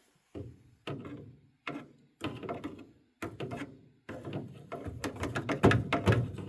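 A screwdriver prodding and scraping at a furnace's clogged condensate drain in short irregular bursts of tapping, clicking and scraping, growing busier and louder toward the end. The clog is chunky, near-solid sludge blocking the drain.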